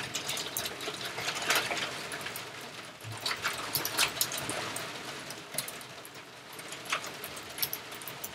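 Typing on a computer keyboard with mouse clicks: irregular sharp taps, some in quick runs, over a faint steady hiss.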